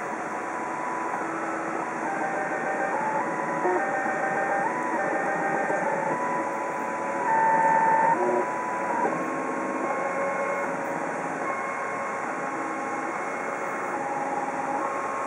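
MakerBot Thing-O-Matic 3D printer printing: its stepper motors whine in thin tones that jump up and down in pitch as the axes change speed and direction, over a steady hiss. The whine is briefly louder about seven seconds in.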